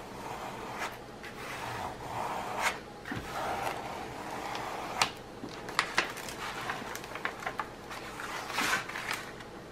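Hands rubbing and pressing across the paper cover sheet of a diamond painting canvas, a steady paper rustle with a few sharp crinkles, working to push air out of deep wrinkles in the glue beneath. Near the end the cover sheet is lifted back.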